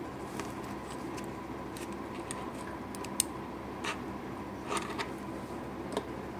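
Light clicks and taps of plastic minifigure parts being handled: a hairpiece pulled off and pressed back onto a figure's head, scattered irregularly over a faint steady room hum.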